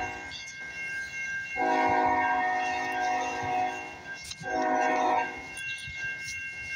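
Diesel locomotive's multi-chime air horn sounding for a grade crossing: a blast ending just as it starts, then a long blast, then a short one, with the next long blast starting at the very end. A steady high ringing from the crossing signal runs underneath.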